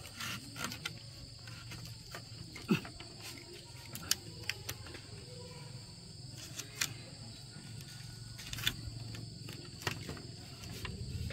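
Insects chirring steadily in the background, with scattered knocks and taps, the loudest about three seconds in.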